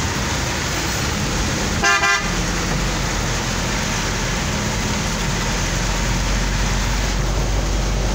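A vehicle horn toots once briefly, about two seconds in. Under it runs a steady rush of heavy rain and wet-road noise, heard from inside a moving vehicle.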